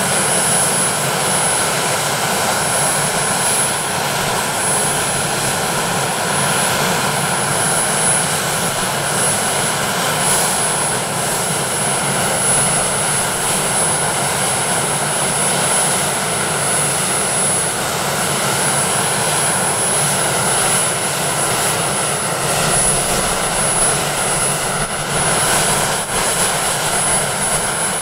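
Westland Sea King helicopter running on the ground with its twin Rolls-Royce Gnome turboshaft engines going and its rotors turning: a steady turbine whine over the rotor noise.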